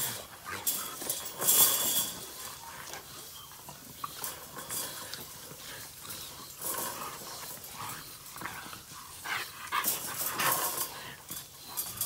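Micro exotic bully dogs playing and tussling in and around a wire pen, with irregular bursts of scuffling and short, sharp scraping sounds, loudest about a second and a half in and again near the ten-second mark.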